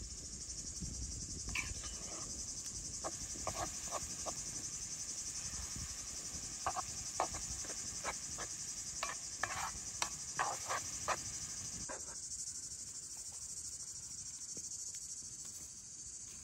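Steady high-pitched insect chorus, with a string of short clicks and scrapes from a wooden spatula stirring ground beef in a metal pan over a campfire. The clicks stop about twelve seconds in.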